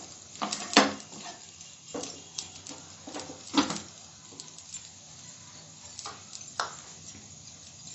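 Scattered knocks and clicks of kitchen handling around a frying pan on a gas stove, a wooden spatula against the pan and the burner being turned off, over faint sizzling of the fried rice.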